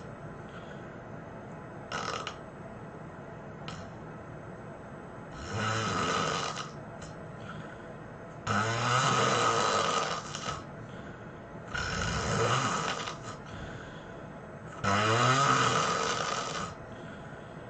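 A person snoring heavily: four long, loud snores about three seconds apart, after two brief fainter ones.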